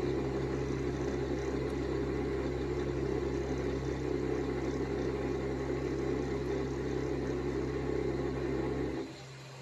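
Axis drive of a CNC hot-wire foam cutter, its stepper motors and ball screw running as the wire carriage moves: a steady whir over a low hum that stops abruptly about nine seconds in.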